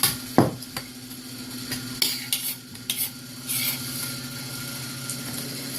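Eating at a table: utensils clicking against dishes a few times in the first second, then short scraping and slurping noises, over a steady low hum.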